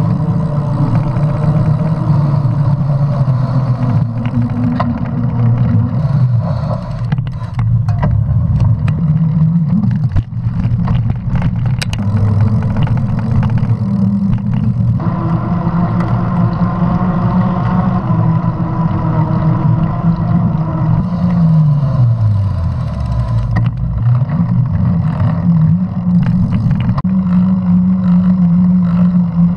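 Mountain bike rolling fast on pavement: knobby tyres hum over a rushing noise, the pitch following speed, falling as the bike slows about three-quarters of the way through and rising again. A run of rattling knocks comes about a quarter to a third of the way in.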